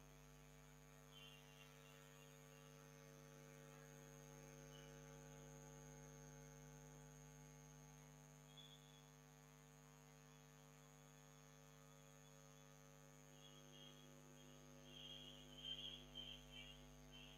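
Near silence: a faint, steady electrical hum, with a few faint brief noises near the end.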